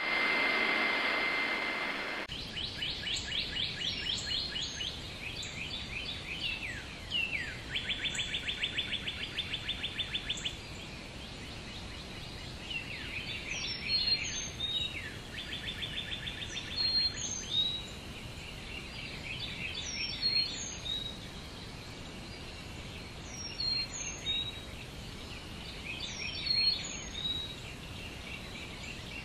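A hiss with a steady high tone, cut off about two seconds in, then birdsong: many chirps and whistled notes with fast, even trills, over a faint steady background.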